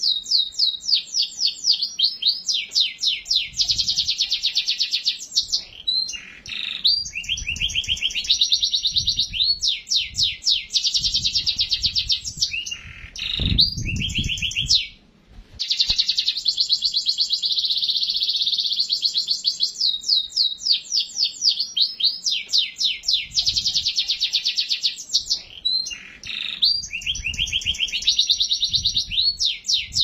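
Domestic canary singing a long, fast song of rapid repeated trills and rolls, with a short pause about halfway through.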